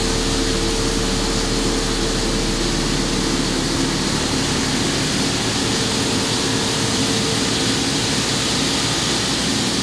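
CNC vertical milling machine cutting a 416 stainless steel recoil lug with its profile tool under high-pressure flood coolant. The spindle and cut make a steady hum with a humming tone, under the hiss of coolant spraying.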